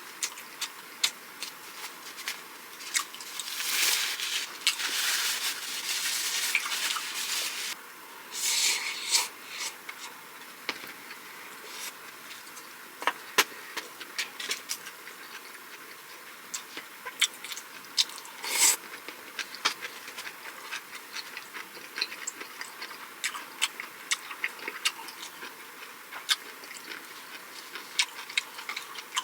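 Close-miked eating sounds: food being chewed, with many sharp wet mouth clicks. There are two longer, noisier stretches of chewing a few seconds in and again around nine seconds.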